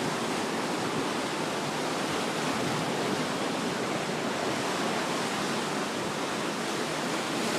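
Steady rushing noise of sea and wind, with no distinct events.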